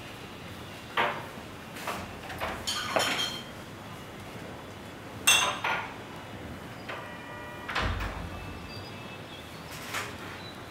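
Dishes and kitchen utensils clinking and knocking now and then, over a steady room hiss, with a brief ringing tone about seven seconds in.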